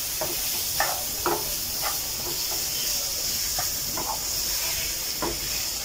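Diced carrots and green chillies sizzling in oil in a non-stick frying pan: a steady hiss, with a spatula scraping and tapping across the pan in short, irregular strokes as the vegetables are stirred.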